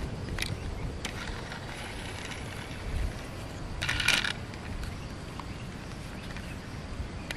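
A plastic toy tractor being handled: a few light clicks and one short rattle about four seconds in, over a steady low outdoor rumble.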